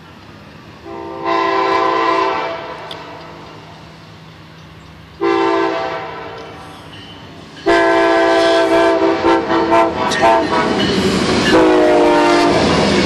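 Nathan K5LA five-chime air horn on an Amtrak passenger train sounding three blasts, the last held long. Near the end of the last blast the horn's pitch drops as the locomotive passes close by, and then the train's wheels are heard rolling over the rail joints.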